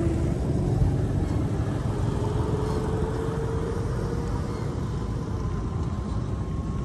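A motor vehicle's engine running over a steady low rumble, its faint hum slowly rising in pitch.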